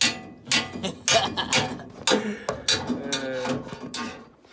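A young child's voice making drawn-out babbling sounds without clear words, mixed with sharp knocks and clicks of parts and tools being handled.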